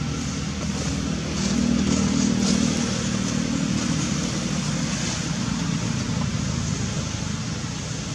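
Low, steady outdoor rumble that swells between about one and a half and three seconds in, then eases off a little.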